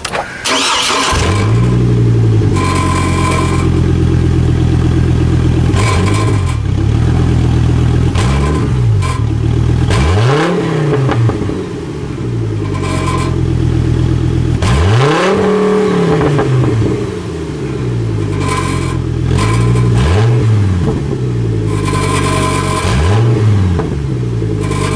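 Five-cylinder truck engine with the muffler bypassed, revved repeatedly from idle, each rev rising and falling back, with pops. Something underneath is rattling, which the owner thinks is the exhaust rubbing.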